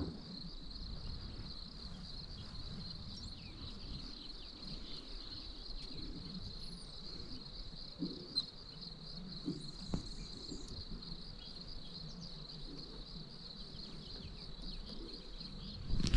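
Steady, high-pitched insect chorus, with a faint click about ten seconds in.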